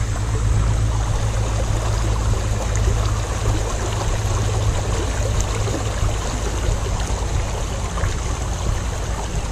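Shallow river water rushing over rocks close by, a steady noise with a deep low rumble underneath.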